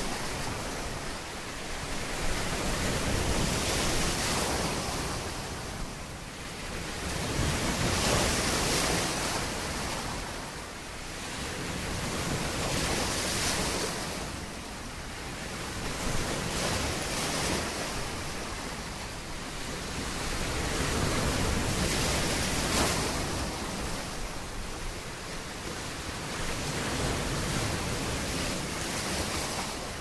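Sea waves washing in: a continuous rushing hiss of surf that swells and eases every five seconds or so.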